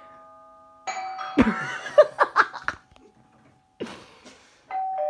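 Electronic doorbell chime: a chime sounds about a second in, and a two-note ding-dong, high then low, near the end. A person's laughter is heard between them.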